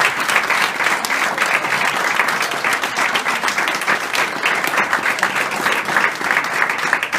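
Audience applauding: many hands clapping in a steady, dense clatter.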